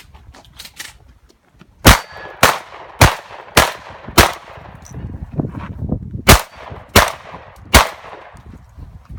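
Shotgun fired rapidly in a competition stage: five shots about half a second apart, a pause of about two seconds, then three more shots.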